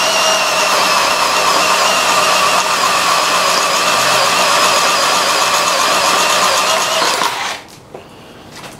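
Porter-Cable 20V cordless drill running steadily under load as it bores into a wooden beam, a constant motor whine. The motor stops about seven seconds in, followed by a few quiet handling knocks.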